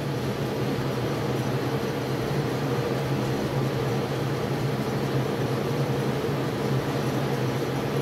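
Steady low mechanical hum of a running machine, holding the same pitch throughout.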